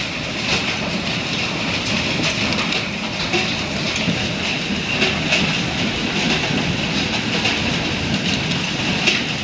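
Heavy hail coming down: a dense, steady clatter of hailstones striking hard surfaces, with many louder single hits standing out from the din.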